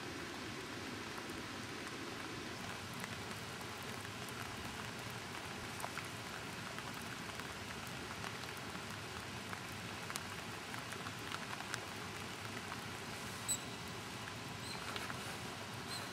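Steady hiss of rain with scattered faint ticks of raindrops. Near the end come a few short, high-pitched squeaks from Eurasian otters.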